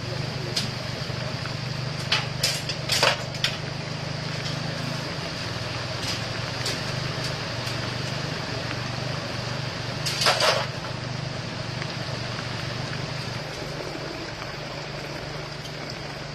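An engine runs steadily with a low hum while metal clanks and knocks sound now and then, the loudest a short clatter about ten seconds in.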